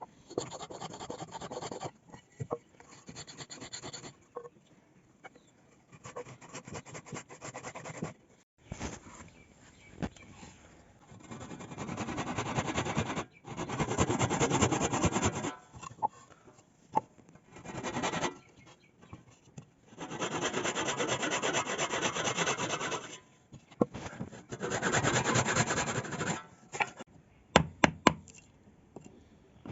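A hand tool scraping and rasping across wood in repeated bouts of one to three seconds each, with short pauses between them, followed by a few sharp knocks near the end.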